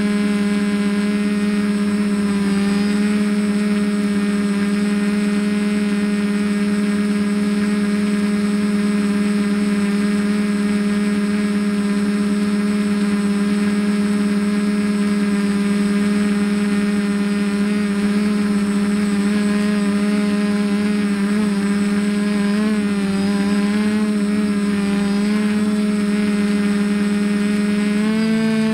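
Four Sunnysky brushless motors of a TBS Discovery quadcopter spinning 10x5 carbon-fibre propellers in a hover, a loud, even buzzing whine heard close up from the onboard camera. The pitch wavers over the last several seconds and dips near the end as the throttle changes.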